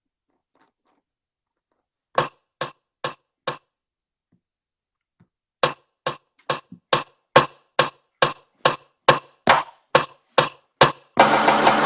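A series of sharp knocks, at first four evenly spaced, then a longer run that speeds up into a quick flurry near the end, like a hand beating out a rhythm on a hard surface.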